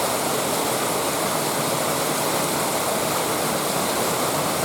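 Steady rush of water tumbling down a waterfall and over the rocks of a stream.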